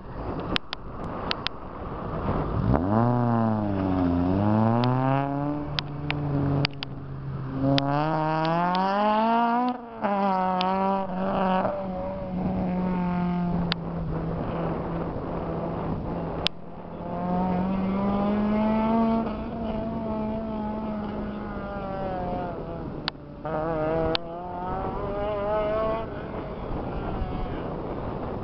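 Autocross car's engine revving hard, its pitch dropping and climbing again and again as the car accelerates, shifts and slows around the cone course, with stretches of steady engine note between. A few sharp clicks near the start.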